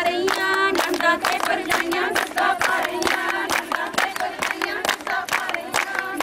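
A group of voices singing a Punjabi folk song over steady rhythmic hand clapping, as in a giddha circle.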